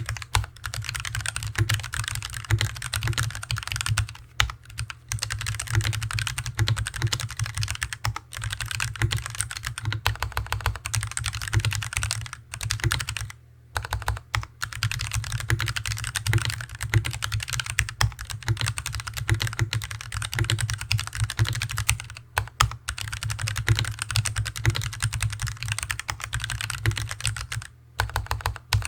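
Fast continuous typing on a rubber-cased Hansung TFG ART keyboard with stock Artbox Red linear switches, a dense patter of keystrokes broken by short pauses about 4, 13 and 28 seconds in. Each stroke carries a deep hollow boom from the desk resonating heavily under the board, with the stabilizers still untuned.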